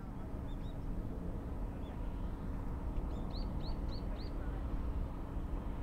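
Small bird chirping in short, high, arched notes: a few single chirps, then a quick run of four about three seconds in. Under it is a steady low rumble with a faint steady hum.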